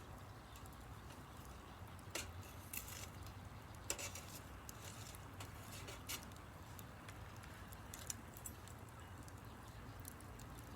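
Wood fire crackling: faint, irregular pops and snaps a second or two apart over a low steady hum.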